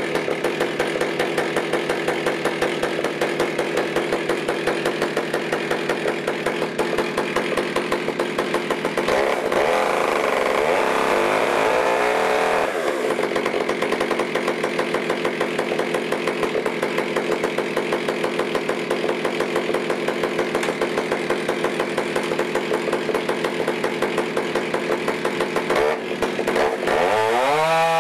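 Modified Stihl MS661 two-stroke chainsaw, mounted in a chainsaw mill, idling steadily after warm-up. It is briefly revved about nine seconds in, then throttled up near the end as the cut begins.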